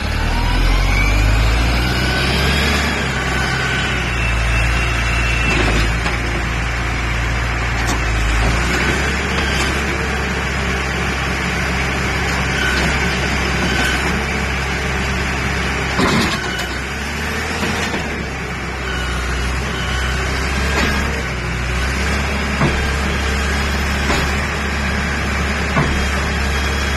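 EVERUN ERB100 backhoe loader's engine running steadily, with a whine that rises in pitch over the first few seconds as it revs. A few short knocks or clanks come later.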